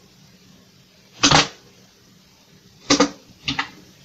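Keys pressed on the Commodore VIC-20's keyboard: a clack about a second in, then two more close together near the end.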